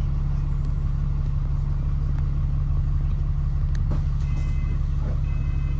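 Steady low rumble of a London double-decker bus's engine and running gear, heard from inside on the upper deck, with a couple of faint clicks about four seconds in.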